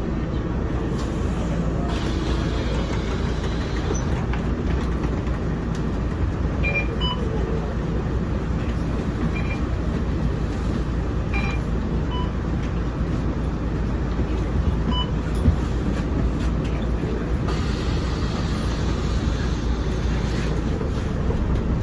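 Mercedes-Benz OC500LE bus heard from inside the passenger cabin, its diesel engine and running gear making a steady low drone. A brighter hiss swells twice, and a few short high squeaks or ticks come from the cabin.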